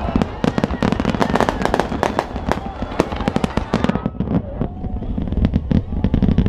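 Aerial fireworks shells bursting in a rapid, dense stream of crackles and bangs, thinning out after about four seconds, with the voices of a large crowd underneath.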